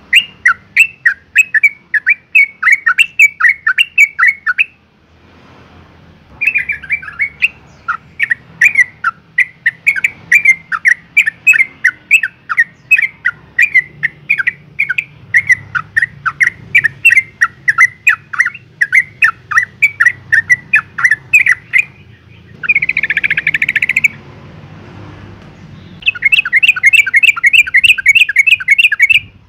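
Female yellow-vented bulbul calling for a male in breeding condition: loud, rapid chattering runs of sharp notes, about four to five a second, in three bouts with short pauses. In the later part comes one brief, harsher buzzing burst.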